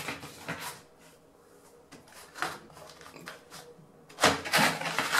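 A wooden skirting strip is handled and set against the edge of a tiled threshold, giving knocks and scrapes of wood on tile. A few light clicks come first, and the loudest clatter comes about four seconds in.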